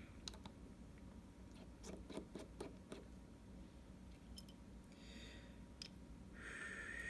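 Faint scattered clicks and two short scrapes as small repair tools and phone parts are handled; the second scrape, near the end, is the louder.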